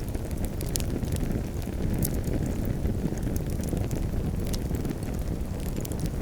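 Campfire burning, a steady low rumble of flames with many sharp crackles and pops from the burning wood scattered throughout.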